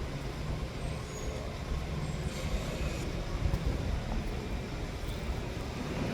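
Diesel engine of a Mack McNeilus front-loader garbage truck running, a steady low rumble.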